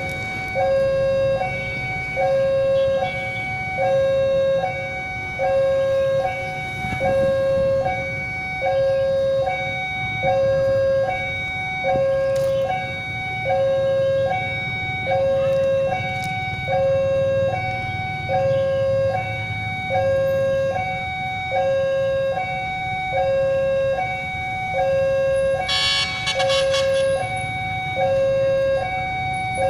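Railway level-crossing warning alarm sounding its two-tone electronic signal, a lower and a higher tone alternating about once every 1.2 seconds, warning of an approaching train. Low road-traffic rumble underneath, and a short shrill burst near the end.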